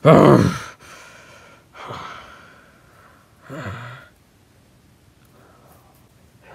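A person's heavy breaths and gasps close to the microphone: a loud one at the start, two weaker ones about two and nearly four seconds in, the last falling in pitch.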